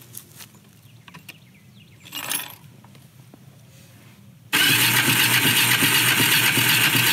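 A few faint clicks, then about four and a half seconds in the Kawasaki Bayou KLF 300's single-cylinder four-stroke engine suddenly fires and keeps running steadily on choke: the engine starting after its ignition repair.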